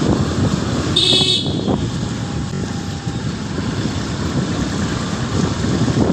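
Motorcycle running along a street, with a steady low rumble of engine and road noise, and a short, high horn toot about a second in.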